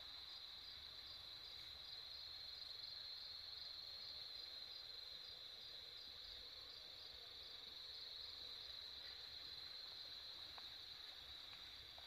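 Night insects singing in a faint, steady, high-pitched chorus, with a softer chirp repeating about four times a second through the first half. A faint low rumble of background noise sits underneath.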